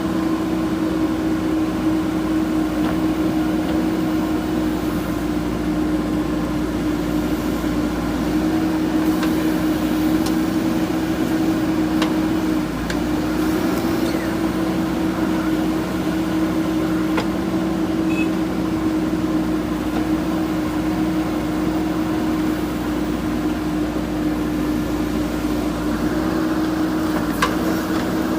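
JCB 3DX backhoe loader's diesel engine running steadily under working load, with a constant whine from its hydraulics. A few faint knocks sound now and then.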